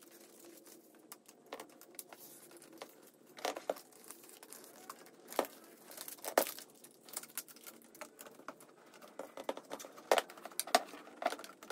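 Aluminium foil tape being pulled off its paper backing and pressed around the seam between an inline fan and its duct adapter to seal it airtight: crinkling and crackling, with several sharper crackles now and then.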